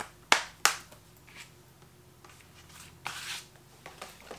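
A plastic Blu-ray/4K disc case being handled and snapped shut: two sharp clicks about a third of a second apart, a few light taps, then a brief rustling scrape about three seconds in.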